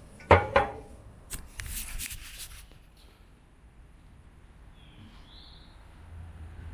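Aerosol can of 3M adhesive remover spraying in a couple of short hissing bursts for about a second, starting about a second and a half in. Before that comes a sharp thump just after the start.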